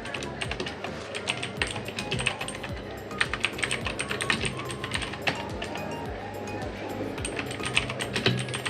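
Typing on an E-Yooso Z686 mechanical keyboard with Outemu Blue clicky switches: fast, uneven runs of sharp key clicks, densest about three seconds in and again near the end, with background music under it.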